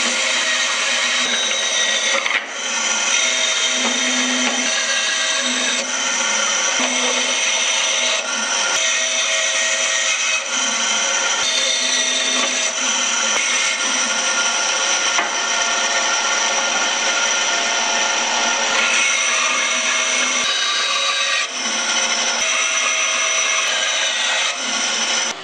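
Bandsaw running and cutting through a thick walnut board along a curved spoon outline: a loud, steady whir, with brief dips about two seconds in and again near the end.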